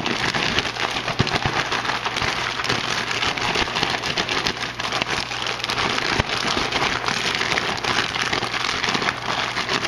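Plastic Ziploc holding raw chicken breasts and a dry spice rub crackling and rustling steadily as it is shaken and rubbed by hand to work the rub into the meat.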